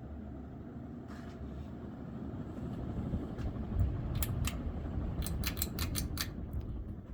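Harbor Breeze Cobra Elite ceiling fan running on high, a steady low rush of air. From about four seconds in comes a quick run of sharp clicks.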